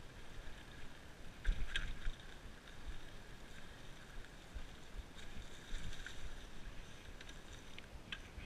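Mountain bike rolling fast down a dirt forest singletrack: steady tyre and ride noise with scattered knocks and rattles from bumps, the strongest about one and a half seconds in and another near the end, with some wind on the microphone.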